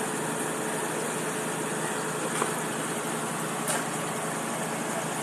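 Concrete pump truck's engine running steadily while its boom places concrete, with a couple of short clicks or knocks partway through.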